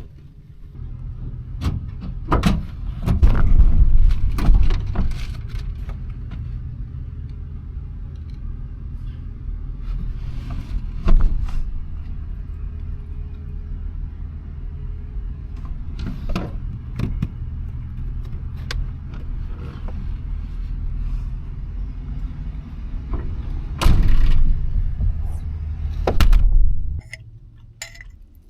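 Car on the move: a steady low road-and-engine rumble with scattered knocks and rattles. It swells louder about three seconds in and again near the end, then stops abruptly.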